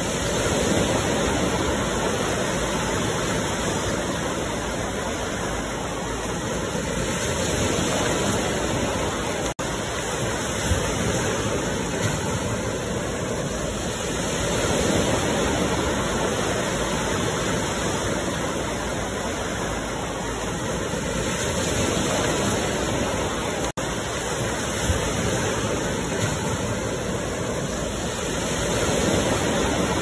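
Ocean surf washing in: a steady rush of water that swells and eases about every seven seconds, cutting out for an instant twice.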